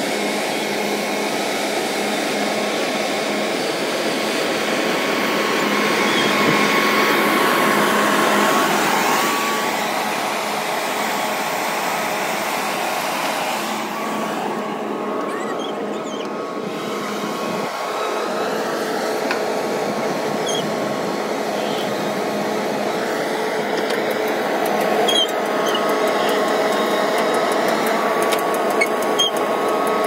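Diesel engines of a JCB backhoe loader and farm tractors running as a steady hum, with a few faint clicks near the end.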